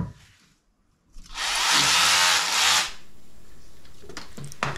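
Cordless power drill running in one burst of about a second and a half, starting just over a second in, with a knock near the end.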